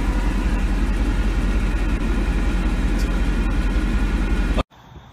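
Mercedes-Benz car idling, heard from inside the cabin: a steady low rumble that cuts off abruptly near the end.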